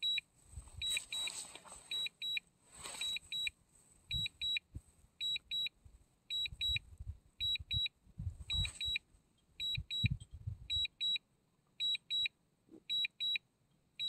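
DJI Mini 2 return-to-home alert: short, high double beeps repeating about every second while the drone flies itself back home. Low gusty rumbles of wind on the microphone come and go underneath.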